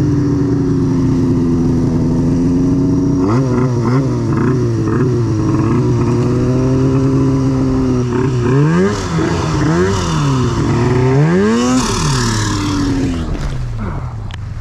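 Turbocharged snowmobile engine running under throttle in deep powder. It holds a steady pitch at first, then rises and falls in repeated revs from about three seconds in as the throttle is worked. Near the end a hiss comes over it as snow sprays up.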